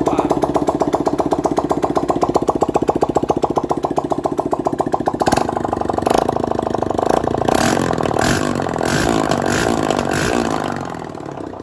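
Honda CG 160's single-cylinder four-stroke engine running with no exhaust pipe fitted: a loud, rapid train of open-port firing pops. From about five seconds in it is revved up in several blips, then the level falls off near the end. The engine has just been rebuilt with a new connecting rod to cure a con-rod knock.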